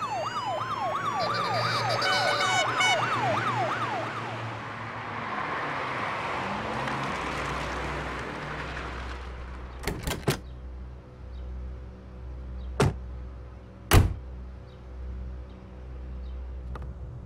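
Police sirens yelp rapidly and wail over traffic noise for the first few seconds, then fade. Later a low engine rumble runs under several sharp car-door slams: a quick pair or trio about ten seconds in, another near thirteen seconds, and the loudest about a second after that.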